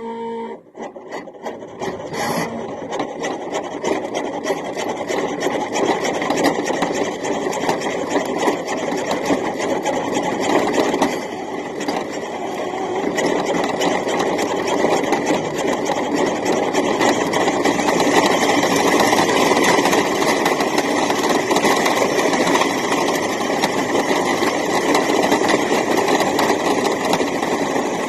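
A toy-grade New Bright RC truck's electric drive motor and plastic gearbox running with a steady whine, the body and wheels rattling and grinding over the ground, heard from a camera riding on the truck. A few clicks in the first couple of seconds, then continuous running.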